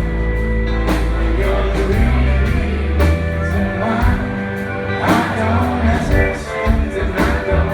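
Live rock band playing an instrumental passage between sung lines, with electric guitar, bass and drums keeping a steady beat.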